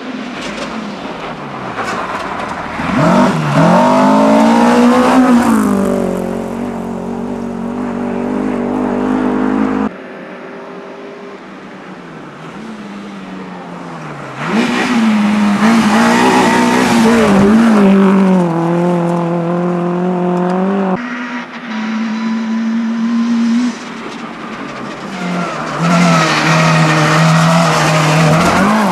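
Rally cars at full throttle on a snowy gravel stage, passing one at a time. Each engine revs up, drops with a gear change and revs again. Three passes are joined by sudden cuts.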